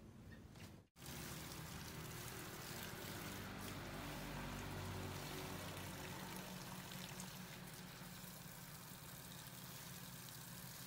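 Water spraying steadily onto the leaves and soil of potted foliage plants, an even hiss and patter starting about a second in, with a low steady hum underneath.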